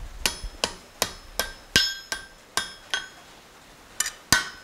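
Hand hammer striking a red-hot steel bar over the horn of an anvil, bending the bar into a curve. The blows ring and come steadily, about three a second. They stop for about a second near three seconds in, then two more blows land near the end.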